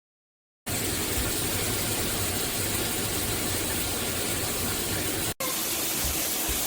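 Water spraying steadily from a shower head, an even hiss that starts abruptly just over half a second in and drops out for an instant about five seconds in.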